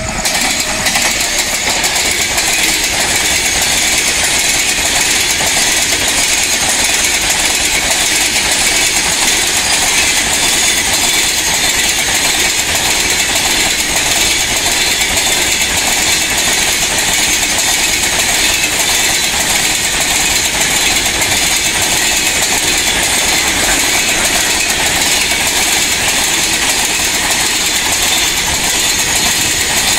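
Train wheels running on the rails at speed: a steady, loud crackling rattle of wheel and track that swells up in the first second.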